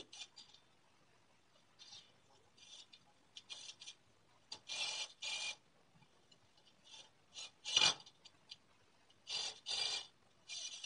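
Cordless drill run in many short bursts, its bit boring into a clamped wooden panel, a rasping whir. The loudest burst comes about eight seconds in.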